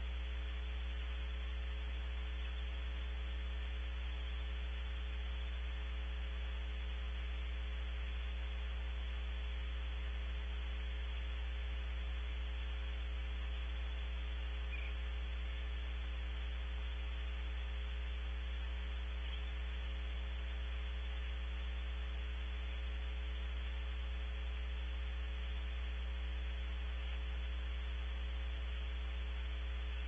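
Steady electrical mains hum with an even hiss from a nest-cavity camera's audio line, unchanging throughout.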